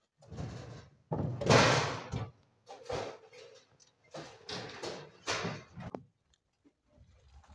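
Firewood clattering and scraping as branches and logs are loaded into a steel tractor trailer: a run of irregular loud knocks and scrapes, some lasting about a second.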